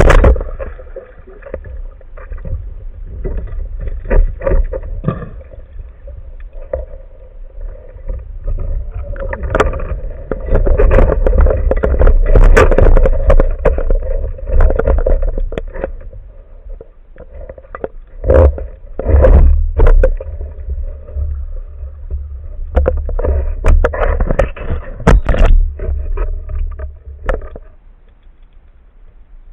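Underwater water noise against the camera: a heavy low rumble of moving water with many knocks and scrapes, starting abruptly and dying down near the end.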